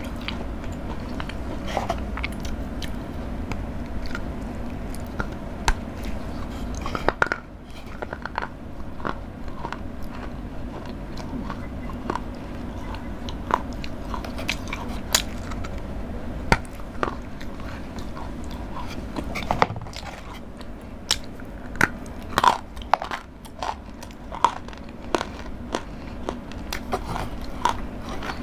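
Close-miked chewing of Dairy Milk chocolate, with irregular sharp crunches.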